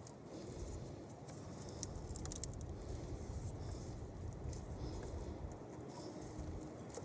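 Scattered light clicks and scrapes from hand work with small metal parts and tools, over a low, steady rumble.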